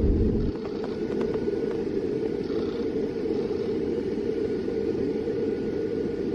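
Steady rushing flight-deck noise of an Airbus A300-600 in flight on approach: airflow and engine noise, with the deepest rumble dropping away about half a second in and a few faint clicks soon after.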